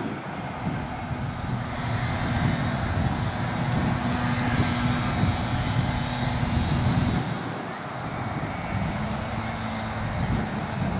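A steady low engine drone in the background, with a humming pitch that holds level, fades about seven seconds in and returns near the end.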